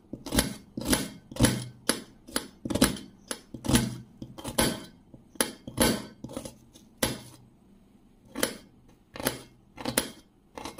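Knife chopping onion on a stainless steel plate, each cut ending in a sharp knock of the blade on the metal, about two a second, then slower and more spaced out over the last few seconds.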